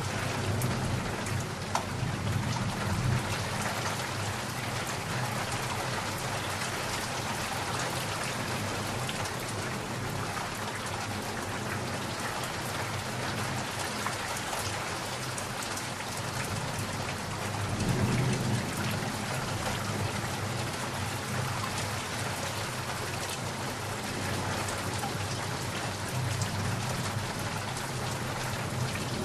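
Steady heavy rain pattering on surfaces, with low rumbles of thunder rolling in a few times, the loudest about 18 seconds in.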